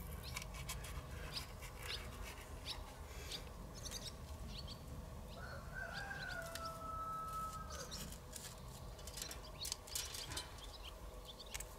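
A rooster crowing once, faint, one slightly falling call of about two seconds around the middle, over scattered faint clicks.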